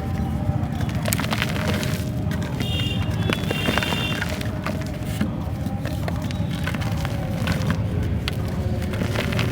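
Dry black matte clay or mud shapes being crushed and crumbled by hand, with many small crackles and crunches throughout.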